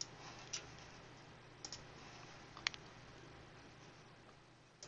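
Computer mouse clicking: a few short, sharp single clicks about a second apart, with a quick double click about a second and a half in, over faint room hiss.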